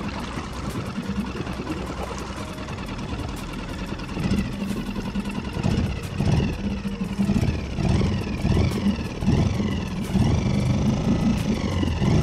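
Small Suzuki outboard motor on a kayak running steadily, just after starting on the second pull. It gets louder about four seconds in and stays louder, pulsing slightly.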